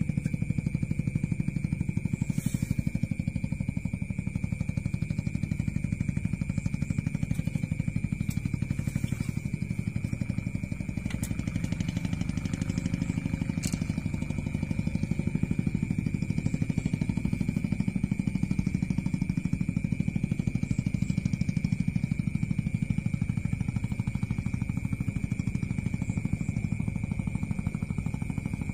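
A small engine running steadily, giving an even low drone, with a thin steady high-pitched tone above it and a few faint clicks.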